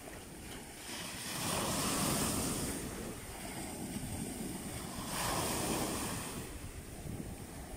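Small sea waves breaking and washing up a sandy shore, the surf swelling twice, about a second and a half in and again about five seconds in, with wind buffeting the microphone.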